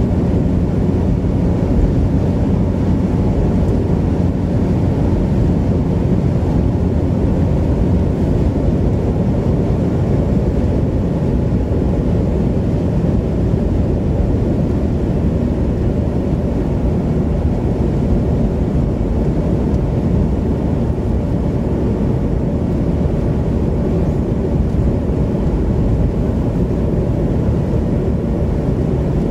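Steady road and engine noise inside a moving car's cabin: an even, low drone with no changes.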